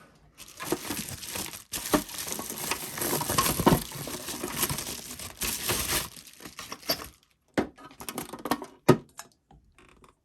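Packaging crinkling and rustling as a boxed item is unwrapped, for about seven seconds, then a few scattered knocks and taps.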